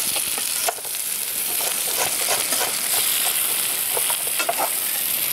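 Tilapia fillets pan-frying in oil, a steady sizzling hiss, with a few light knife taps on a plastic cutting board as a red onion is sliced.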